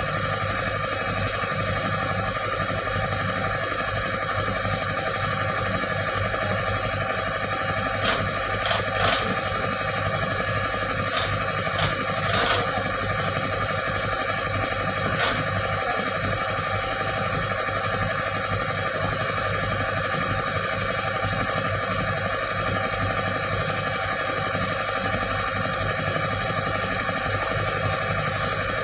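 Mini excavator's diesel engine idling steadily. A handful of short sharp knocks come through about a third to half of the way in.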